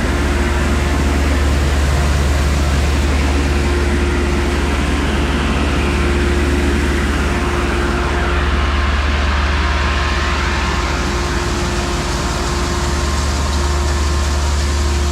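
Heavy farm machinery running steadily, a constant low drone with a steady hum above it.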